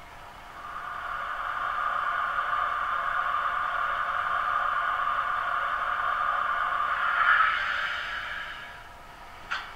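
Sound decoder of a Piko BR 216 H0 model diesel locomotive playing its engine start-up and idle through the model's small loudspeaker. The thin engine note, with no low end, rises over the first couple of seconds, holds steady, swells briefly about seven seconds in, then dies away, and clicking starts at the very end. The owner judges this unit's sound much weaker than it should be and the model defective.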